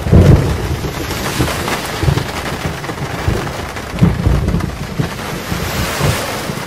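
Steady rain with rolling thunder: a heavy rumble at the start and another about four seconds in.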